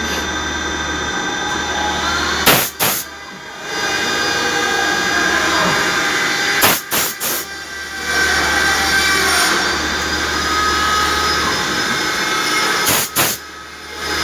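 CNC machining center engraving stainless steel: the spindle and cutter run with a steady mechanical noise and several high whining tones. It is broken three times by sharp clicks followed by a brief quieter moment.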